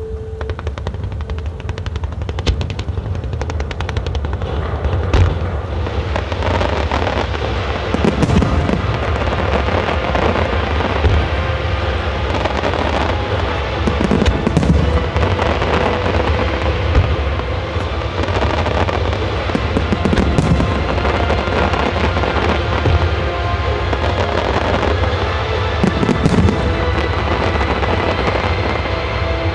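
Japanese fireworks display firing a dense barrage, a starmine, of launches and bursts: constant crackling and popping, with heavy booms about every six seconds. Music plays underneath.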